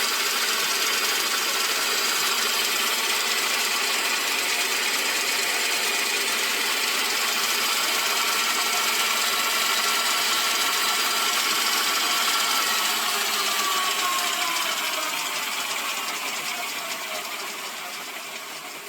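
Milling machine head running on a makeshift gaffer-tape drive belt with the jockey pulley taken out, its motor and main spindle turning steadily with no bearing noise. This points to the worn bearing being in the jockey pulley, not the spindle bearings. About 13 seconds in it is switched off and runs down, its pitch falling as it fades.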